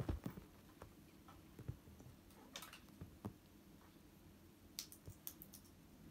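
Faint, irregular soft taps and clicks of a kitten pawing, clawing and biting at a wand toy with a string on carpet, the loudest a thump right at the start, over a steady low room hum.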